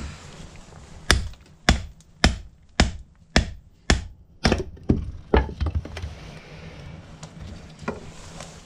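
Hatchet chopping a block of firewood into kindling on a chopping round: about nine sharp chops, roughly two a second, then a few lighter taps and one last chop near the end.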